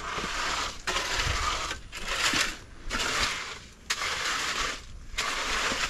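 Steel shovel and hoe blades scraping and dragging through fresh concrete and gravel as the mix is spread over a slab base, about six scrapes at roughly one a second.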